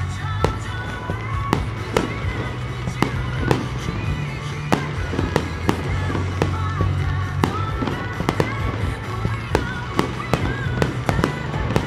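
Aerial firework shells bursting one after another, sharp reports about one to two a second, over music with a steady bass line.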